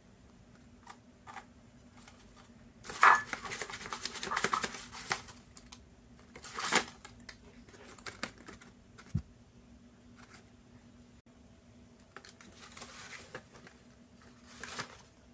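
Paper being handled, rustling and crinkling with small taps in several short bursts, the loudest about three seconds in.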